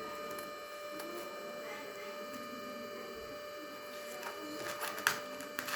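Steady electrical hum with a few fixed high tones. From about four seconds in, clicks and crackles of the parcel's packaging being handled.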